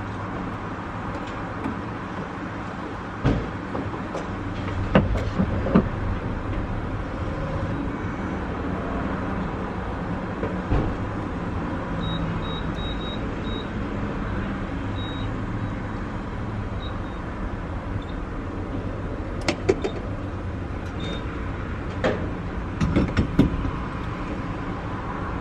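Petrol station fuel pump filling a car's tank, a steady hum throughout. A few sharp knocks and clicks come from handling the nozzle and pump, with a short run of high beeps about halfway through.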